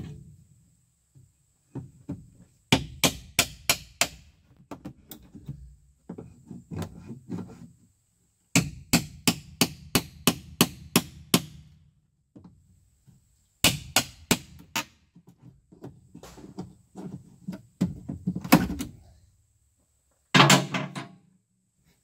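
A hammer striking a steel pry bar to drive it under the lid of a wooden crate, in three quick runs of sharp blows. Between the runs and near the end the nailed pine boards creak and grind as they are pried loose.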